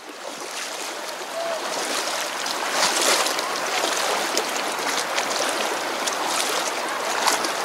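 Shallow river current rushing and gurgling close to the microphone. It grows louder over the first two seconds, with a few short splashes.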